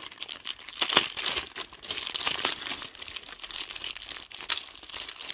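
Plastic garment packaging bag crinkling and crackling irregularly as it is handled and pulled open to get the dress out, with one sharp crackle about a second in.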